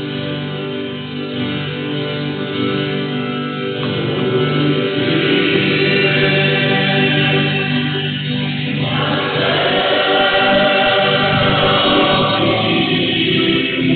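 Church hymn sung by a choir with guitar accompaniment, growing louder about five seconds in.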